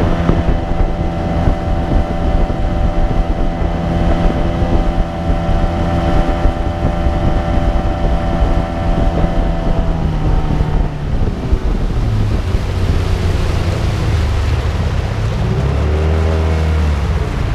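Small boat's outboard motor running under way at a steady speed, dropping in pitch about ten seconds in as it slows, then briefly rising and falling in pitch near the end. Wind buffets the microphone throughout.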